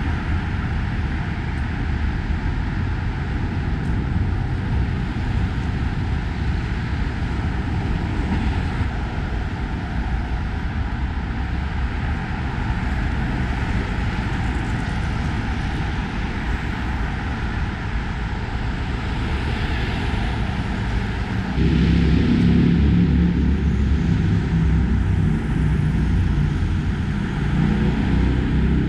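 Steady road traffic on a wide city avenue, a continuous rumble of passing cars and trucks. A louder, heavier low rumble sets in about two-thirds of the way through.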